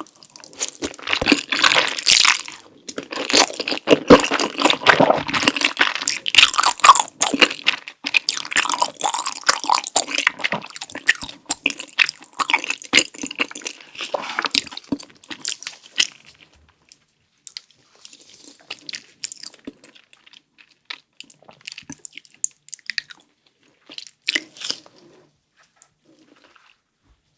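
Close-miked eating sounds: biting and chewing with wet, crackly crunching. The chewing is dense for the first half, then thins to scattered small mouth clicks and smacks, and falls almost quiet near the end.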